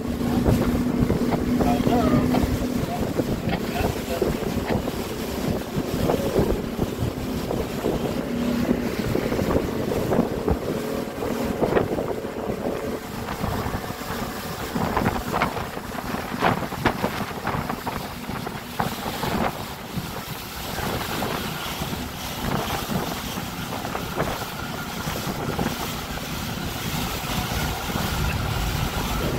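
Small speedboat under way on open water: wind buffeting the microphone and water rushing and slapping against the hull, over an outboard motor running. A steady engine tone stands out for the first several seconds, and the middle is full of short sharp splashes.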